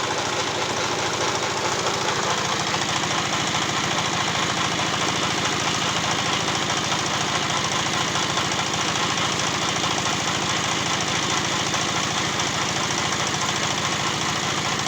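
Engine of a pellet-making machine running steadily, with a fast, even beat.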